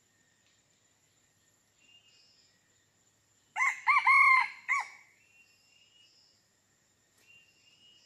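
A rooster crows once, about three and a half seconds in: a short crow of about a second and a half in several linked notes. A steady high insect drone and faint chirps sound behind it.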